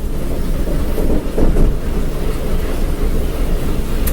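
Steady low rumble of a moving train, heard from the rear of a Rock Island commuter train, with wind buffeting the microphone; it swells briefly about a second and a half in.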